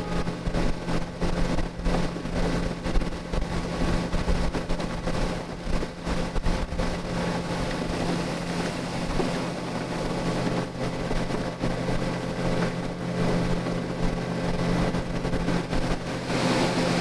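Small motorboat's engine running at a steady pitch over a constant rushing noise as the boat moves on the water.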